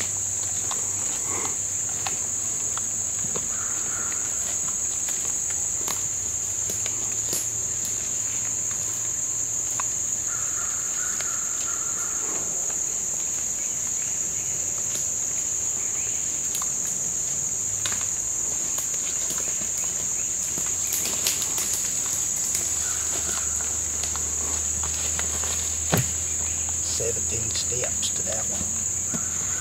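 A steady, high-pitched chorus of insects. Footsteps crunch through dry leaves and pine straw, and one sharp knock sounds near the end.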